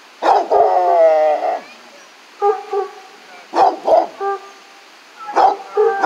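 Coonhound baying: one long, wavering howl lasting about a second, then short barks in clusters of two or three.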